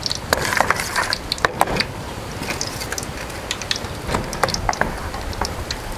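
Metal spoon scraping and clicking against the inside of a plastic basin as a mixture is stirred by hand: a run of irregular clicks and scrapes, busiest in the first two seconds.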